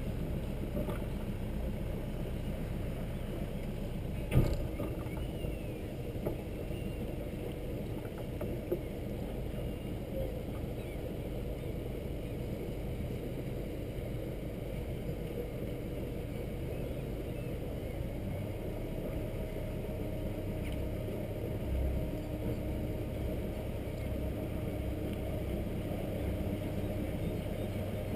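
Hallberg-Rassy 352 sailboat's inboard diesel engine running steadily while motoring slowly, with a single sharp knock about four seconds in.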